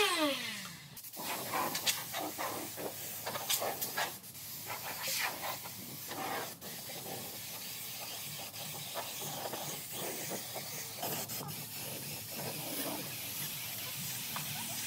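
Work on wood producing a steady hiss with irregular scratchy rubbing strokes, busiest in the first half and steadier after.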